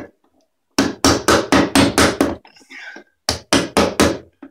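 Quick, evenly spaced hammer taps on a tool set in the paint-clogged slot of a sash pulley's flathead screw, clearing out old paint. The blows come in two runs of five or six, about four a second, with a brief scrape between them.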